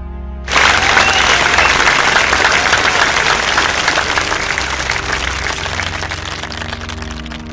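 Audience breaks into loud applause about half a second in, then slowly tapers off, with low background music continuing underneath.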